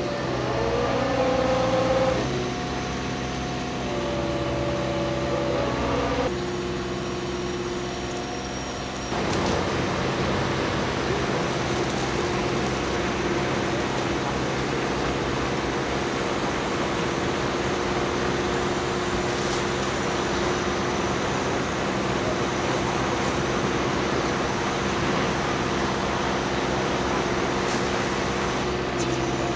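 The engine of a Typ 6510/6520 aquatic weed-harvesting boat running steadily while its conveyor lifts and drops cut weed. In the first few seconds a whine glides up and down in pitch. About nine seconds in, the sound turns rougher and noisier.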